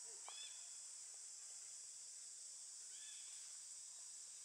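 Faint outdoor ambience: a steady high insect drone, with a short high chirp just after the start and two more about three seconds in.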